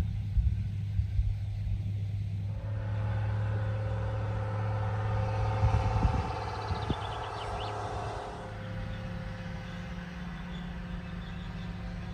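A vehicle engine running steadily with a low hum, with a higher tone riding over it for a few seconds in the middle.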